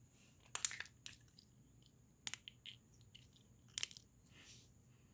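Green slime being pressed and squeezed by hand, giving a few short, sharp crackling pops, the loudest about half a second in and near four seconds in.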